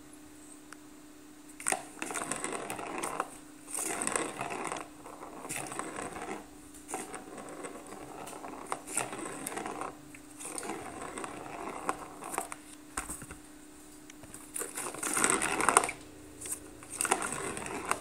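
Plastic ball-track cat toy with a corrugated cardboard scratch pad rattling in repeated bursts as a kitten paws at it and climbs on it, the loudest burst near the end.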